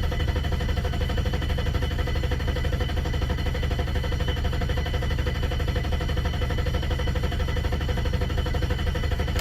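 BMW E32's M30 straight-six engine running at idle with a steady low pulsing, then stalling, the sound cutting off abruptly at the very end. The stall is the car's recurring stalling fault, which the owner guesses may be air in the system or the gasoline.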